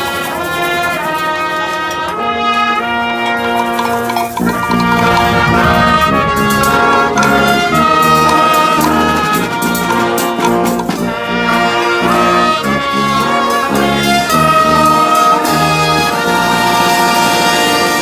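A marching band playing live: a brass-led tune of held and moving notes over drums.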